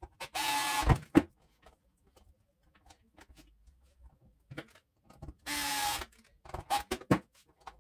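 Small cordless screwdriver whirring in two short runs about five seconds apart as it drives screws into a plastic pump housing, with a few sharp clicks after each run.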